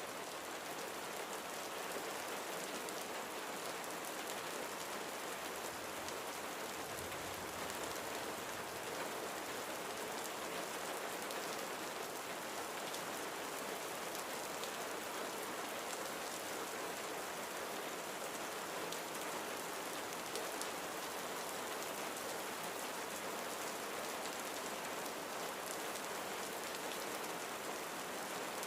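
Steady rain: an even hiss with a faint patter of drops.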